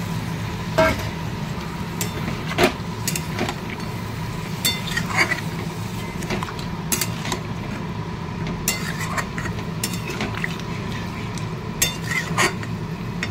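Metal spatula scraping and knocking against a karahi at irregular moments while chunks of elephant foot yam and hilsa fish head are stirred in gravy, over a steady low hum.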